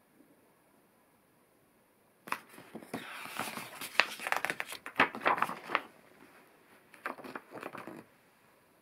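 Page of a paperback picture book being turned by hand, the paper rustling and crinkling for a few seconds, followed about a second later by a shorter rustle of the paper.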